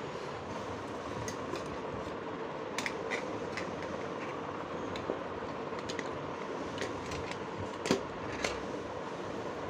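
Steady fan-like hum, with scattered light clicks and knocks as a steel cricket-helmet grille is handled and fitted against the helmet; the sharpest knock comes late on.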